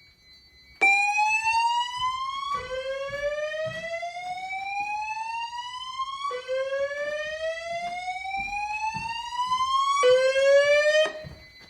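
Fire alarm voice-evacuation speaker sounding the slow whoop alert tone between evacuation messages: repeated rising sweeps, each about four seconds long. It starts about a second in and cuts off shortly before the end.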